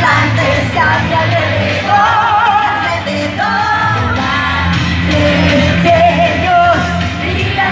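A woman singing live into a microphone over a loud pop-rock backing track, her voice wavering with vibrato on held notes.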